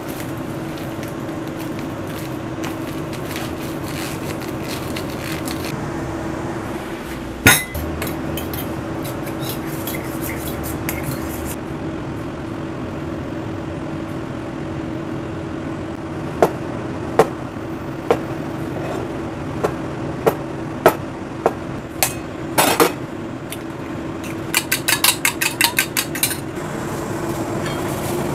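Steady hum of a kitchen range hood fan, with a sharp knock about seven seconds in and scattered knocks on a plastic cutting board later on. Near the end comes a quick run of knife chops on the board.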